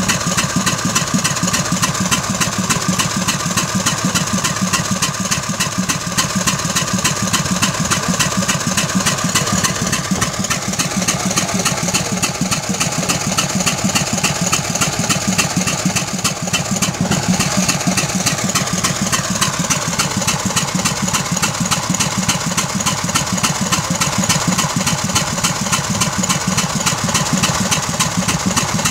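The 16 hp gasoline engine of a 1907 Waterous horse-drawn fire engine runs steadily with an even, rapid beat.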